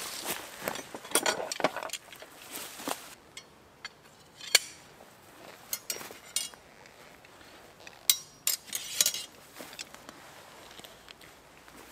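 Rustling of a backpack and fabric, then scattered sharp clinks and knocks of metal tent poles being handled and set up, with a quick cluster of clinks near the end.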